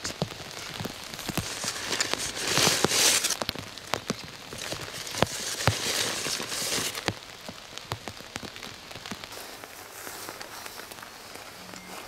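Rain pattering on a tarp shelter overhead, with single drops ticking sharply on the fabric. The hiss swells louder twice in the first half and settles quieter after about seven seconds.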